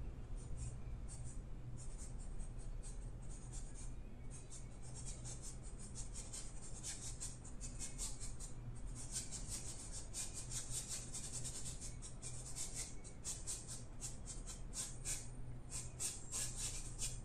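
Paintbrush brushing acrylic paint onto a stretched canvas: many short, quick scratchy strokes, coming thicker in the second half, over a steady low hum.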